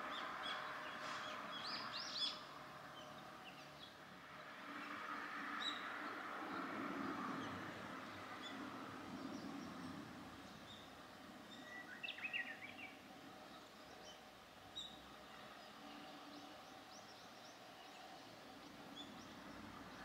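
Faint, short calls of a brown-eared bulbul: a few high chirps about two seconds in and a brief burst of calls around twelve seconds in, over a steady background hum.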